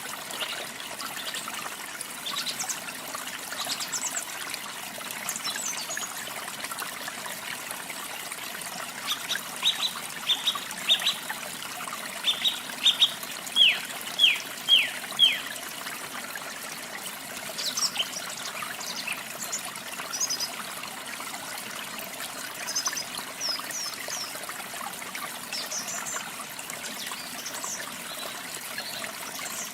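Steady rush of falling water from a waterfall, with songbirds singing over it: a quick series of sharp down-slurred notes about ten seconds in, then scattered high chirps.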